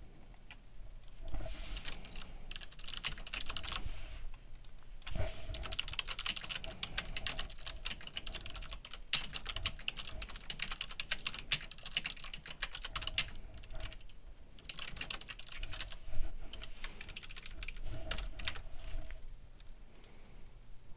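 Typing on a computer keyboard in quick runs of key clicks, broken by short pauses.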